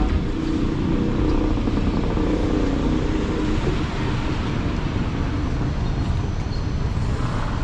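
City street traffic: a car engine hums close by for the first few seconds, then fades into steady road noise.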